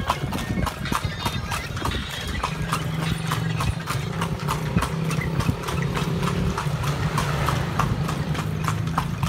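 Horse's hooves clip-clopping on a paved street at about four to five strikes a second as it pulls a horse-drawn carriage. An engine hums steadily underneath from about two and a half seconds in.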